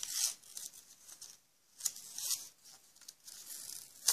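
Action-figure packaging handled close up: the clear plastic window and cardboard box crinkling and tearing in a few irregular noisy bursts, with a sharp click near the end.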